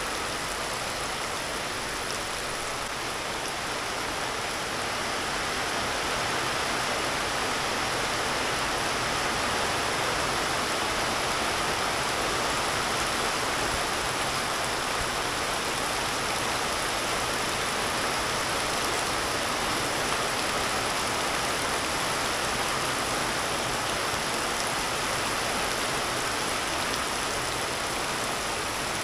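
Heavy rain falling in a steady hiss, growing a little heavier about six seconds in.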